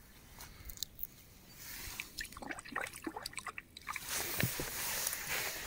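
Small drips and splashes of water at the water's edge, with scattered light clicks and rustles of handling, louder near the end.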